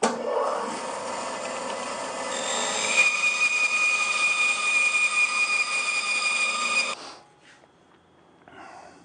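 Bandsaw running and cutting through a wooden block, a steady machine sound with a high steady whistle joining in about three seconds in. It stops abruptly after about seven seconds.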